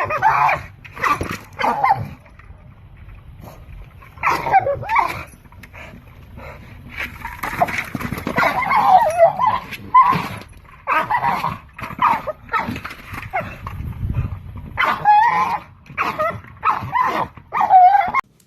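A dog whining and yipping in a long run of short pitched calls that bend up and down in pitch. The calls cut off suddenly near the end.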